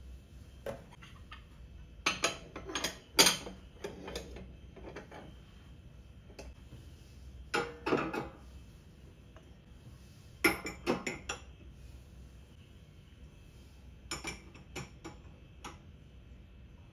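Glass bowls and plates being set into a wire dish rack, clinking and knocking against each other and the rack in short clusters every few seconds.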